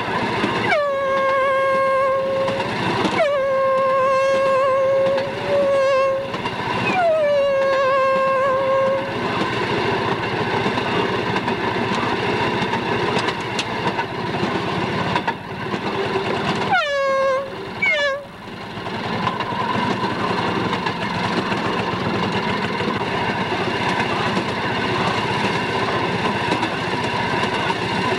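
A railroad motorcar's horn sounds two long blasts, a short one and a long one, the grade-crossing signal, each blast sliding down to a steady note. The motorcar's small engine runs steadily beneath it, and two short horn toots follow about 17 seconds in.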